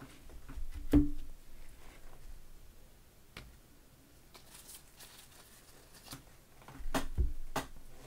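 Stacks of trading cards being picked up and set down on a tabletop: a sharp knock about a second in, a few light taps and clicks, then a short cluster of knocks near the end.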